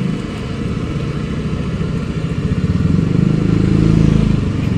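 Motorcycle engine running nearby, growing louder about three seconds in and easing off near the end.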